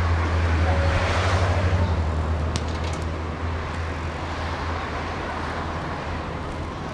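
Outdoor football-pitch ambience: a steady low rumble with a faint distant shout about a second in and a few sharp knocks around the middle.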